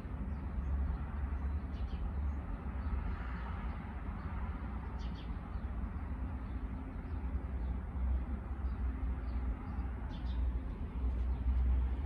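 Outdoor street ambience: a steady low rumble with a few short, high bird chirps scattered through.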